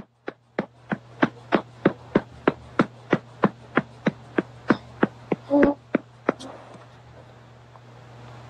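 A hand patting a baby's back firmly and evenly, about three pats a second, stopping about six seconds in. A brief small voice sound comes just before the pats stop, and a steady low hum runs underneath.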